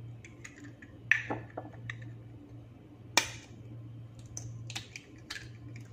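Eggshells cracking and being pulled apart by hand over a blender jar: scattered small clicks and crackles, with two sharper cracks about a second in and about three seconds in.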